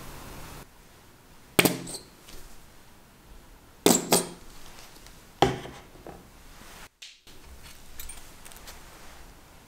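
Four sharp clinks and knocks of hard kitchen objects, each with a short ring: one a second and a half in, two close together about four seconds in, and another a second and a half later.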